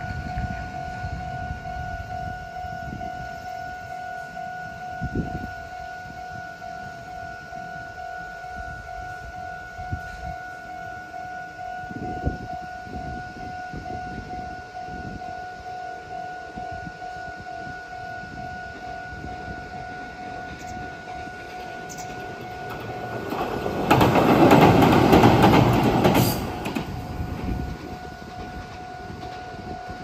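Level-crossing warning bell ringing steadily on two tones while a Meitetsu Gamagori Line train crosses the railway bridge beside it, the train loud for about three seconds near the end. The bell cuts off at the very end.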